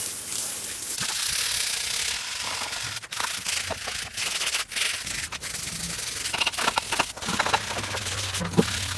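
Rubbing strokes of sanding or abrasive scrubbing on a surface: a steady hiss at first, then more uneven strokes with small clicks.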